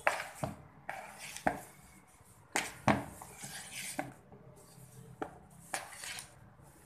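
A spoon knocking and scraping against a mixing bowl as thick dough is stirred and worked by hand: scattered irregular clicks and knocks, the loudest about three seconds in.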